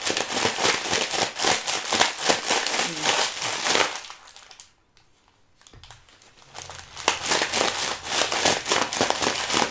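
Plastic packet of chicken Wai Wai instant noodles crinkling as the dry noodles are crushed and broken up, a dense run of crackles and crunches. It stops for about a second near the middle, then starts again.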